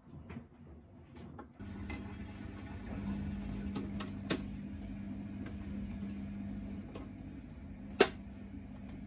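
A small electric motor switches on about a second and a half in and runs with a steady hum, with two sharp metallic clicks over it, the second near the end.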